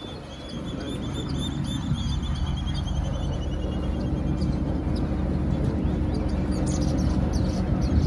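Boat motor running steadily and slowly growing louder, with a bird giving a run of quick chirps that drop gradually in pitch over the first few seconds.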